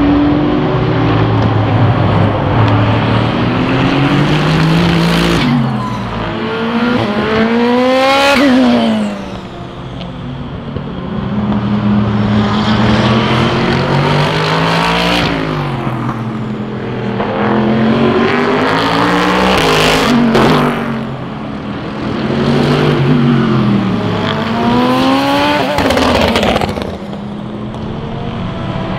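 SUPER GT race cars passing through a corner one after another, each engine's note falling as it comes in, then climbing in stepped rising sweeps as it accelerates away through the gears. Several passes overlap, with brief lulls between them.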